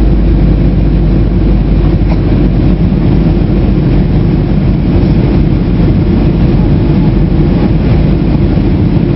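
Steady cabin noise of an airliner in flight, heard from inside at a window seat: the jet engines and rushing airflow make an even, loud, deep noise.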